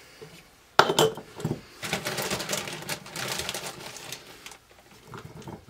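Canning funnel and glass pint jars clattering as pieces of roast turkey are dropped into the jars: a sharp knock about a second in, then a spell of quick light clicking and rattling.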